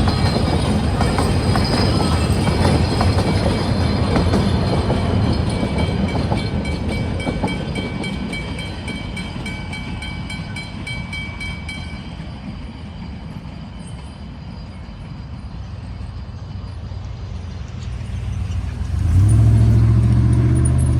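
Puffing Billy narrow-gauge steam train rumbling over the crossing and fading as it goes, with the crossing's Westinghouse bells ringing until about twelve seconds in. Near the end a road vehicle's engine starts up close by with a low steady hum.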